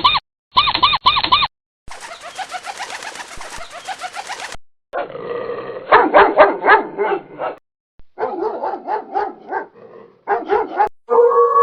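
A string of animal sound clips: short repeated bird calls, then a stretch of dense chirping, then a dog barking in quick runs, and near the end a steady drawn-out howl begins.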